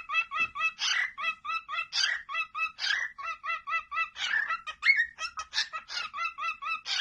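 A bird calling in a rapid run of short, evenly repeated pitched notes, about five a second, with a few louder, harsher calls mixed in; it cuts off abruptly at the end.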